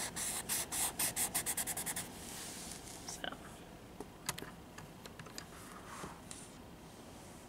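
Prismacolor colorless blender pencil scrubbed rapidly back and forth on sketch paper, about seven strokes a second, stopping about two seconds in. After that, only a few faint clicks.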